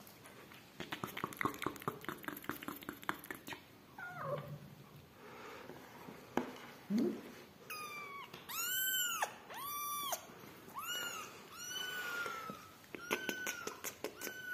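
Newborn kitten crying: a string of about seven high, arching mews in the second half, as it is held up by hand. In the first few seconds, a quick run of clicks from the mother cat chewing her food.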